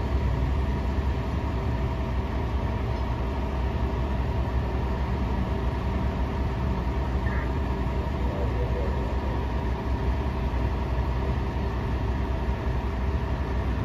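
Fire engine's diesel engine idling: a steady low rumble with an even hum.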